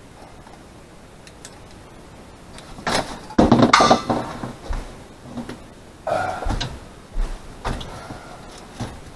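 Irregular knocks and clatters of things being handled and moved, the loudest a cluster a little after three seconds in, with a few more bumps near the end.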